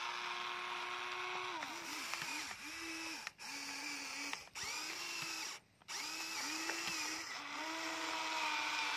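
Electric gear motors of a Huina remote-control toy excavator whining as the boom and bucket move. The whine stops and restarts many times, with a short dip in pitch as each motion starts, and cuts out briefly three times.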